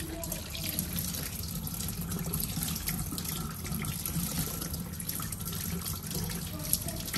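Tap water running into a stainless steel sink and splashing over hands as they rinse a soaked sea cucumber.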